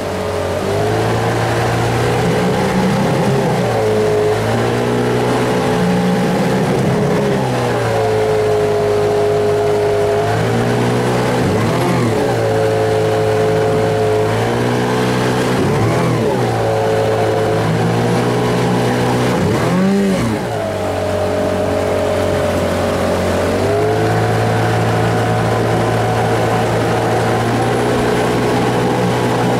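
Mercury 8 hp outboard motor running under way, pushing a small boat across open water. Its engine speed dips sharply and picks up again several times, and it settles at a slightly different pitch now and then.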